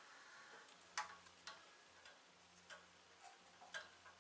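Faint, scattered metallic clicks, about four in four seconds, from the overhead-valve engine of a WEN 4050 generator being turned over slowly by hand with its valve cover off, so the valves and rockers can be watched and felt for lash.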